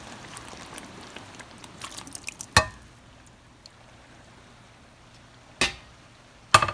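Thick tomato sauce sliding and scraped out of a pan onto cooked pasta in a steel pot, a soft wet squish, with sharp metal clanks of the cookware about two and a half seconds in, again after five seconds, and a quick cluster near the end.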